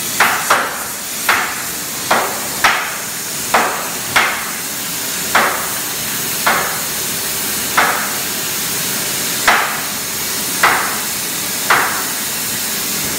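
Sledgehammers striking a red-hot steam-locomotive firebox plate, flanging its corner by hand over a former: about a dozen sharp blows at irregular spacing, coming further apart toward the end, over a steady hiss.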